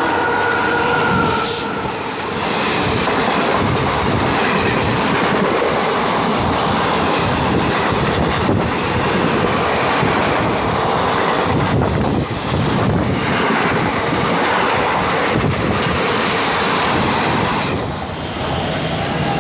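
An express train passing close alongside a moving suburban local train: a steady rush of coaches going by, with wheel clatter over the rail joints.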